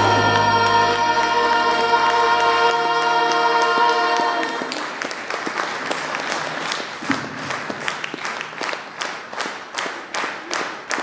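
A choir holds the final chord of a song for about four seconds, then the audience breaks into applause. The applause settles into steady rhythmic clapping in unison, about three claps a second.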